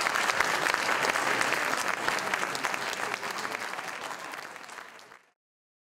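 Applause from many people clapping, fading out over the last couple of seconds and cut to silence about five seconds in.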